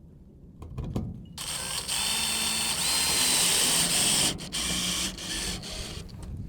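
Power drill driving screws, with a run of about three seconds, a short break, then a shorter run, after a few handling clicks.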